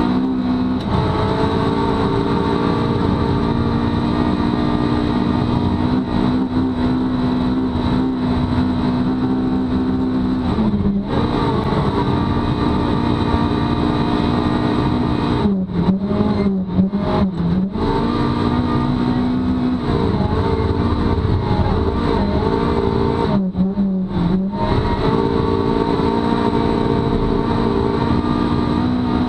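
Rally car engine heard from inside the cabin, running hard at high revs at full stage speed on a snowy road. The engine note breaks off briefly about eleven seconds in, again in a series of short drops around sixteen to eighteen seconds, and once more around twenty-four seconds, as the driver lifts off and changes gear for corners.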